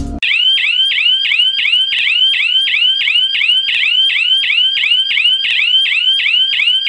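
12 V 120 dB electronic alarm siren sounding a loud, fast yelp: a high tone sweeping down in pitch about three times a second, over and over. It starts abruptly just after the beginning.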